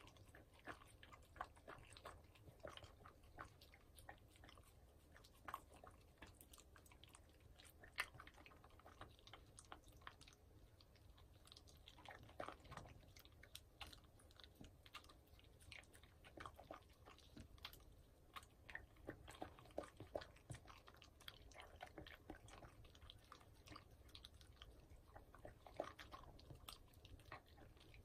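Shiba Inu eating salmon steak and broccoli off a wooden board: quiet, irregular chewing and biting, a steady run of small clicks and crunches.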